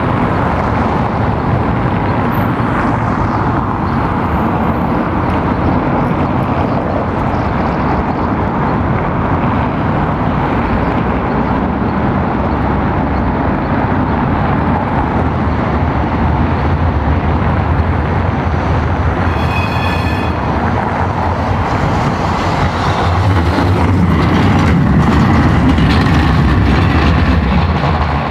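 Steady street noise with a tram approaching on the street track. It grows louder over the last few seconds as the tram rolls close past. A brief high ringing sound comes about twenty seconds in.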